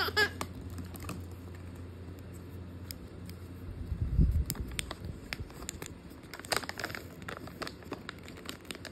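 Handling noise: scattered small clicks and crinkles as small plastic toy pieces and plastic packaging are fiddled with by hand, with a low thump about four seconds in.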